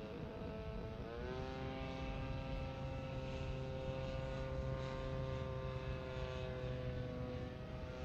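Seagull Models Super Decathlon 120 RC airplane in flight, its motor and propeller giving a steady pitched drone. The pitch rises about a second in as the throttle is opened, then holds steady.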